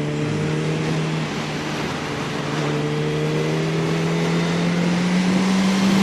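Yamaha R1 inline-four engine running under way, its revs climbing slowly and getting louder.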